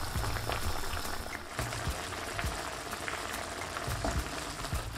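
Potatoes and green peas simmering in butter and beef-and-chicken stock in a non-stick pan, the stock bubbling steadily with many small pops.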